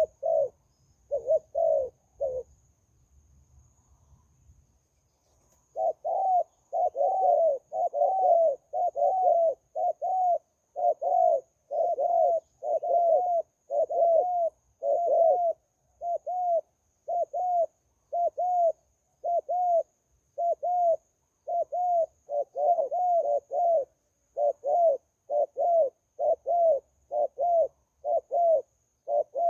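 Zebra dove cooing in short, arching notes. A few coos come at first, then a pause of about three seconds, then a long unbroken series of one to two coos a second.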